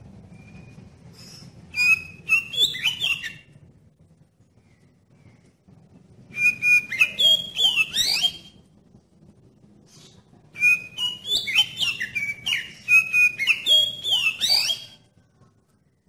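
Oriental magpie-robin (kacer) singing in three bursts of quick, clear whistled phrases whose notes slide up and down.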